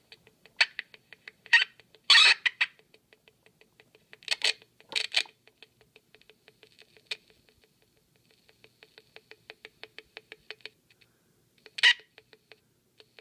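CD40106 Schmitt-trigger oscillator sounding through an LM386 mini amplifier and a small 8-ohm speaker: a steady train of clicks, about five a second, with a faint buzzy tone. Several louder crackles break in, and the click train fades out briefly twice before coming back.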